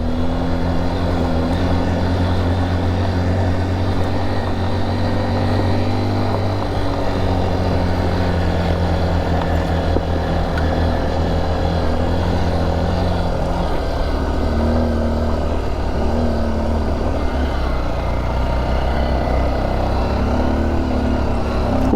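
Honda XR trail motorcycle's single-cylinder four-stroke engine running steadily under way in a low gear, its pitch shifting slightly a few times.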